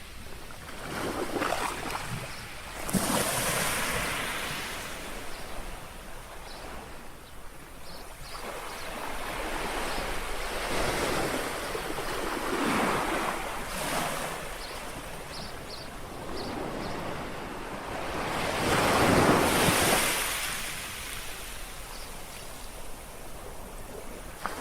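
Small sea waves lapping and washing onto the shore, the wash rising and falling every few seconds, with the biggest swell about nineteen seconds in.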